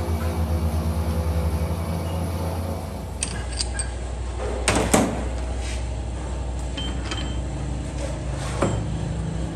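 Steady low hum of workshop machinery, pulsing for the first three seconds. About five seconds in, sharp metal clanks come as a chuck key loosens the lathe chuck jaws, and another metal knock sounds near the end as the pinion is freed.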